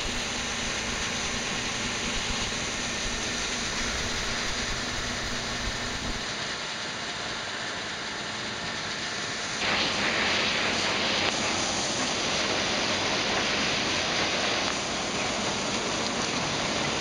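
Combine harvester running steadily with a broad, hissing mechanical noise, which gets louder about ten seconds in.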